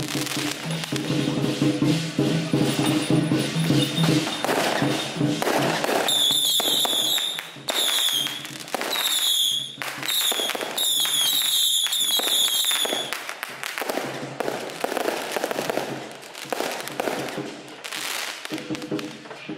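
Firecrackers and fireworks crackling and popping densely. From about six seconds in, a run of whistling fireworks gives short high-pitched whistles one after another for about seven seconds. Music with a steady melody plays underneath for the first six seconds.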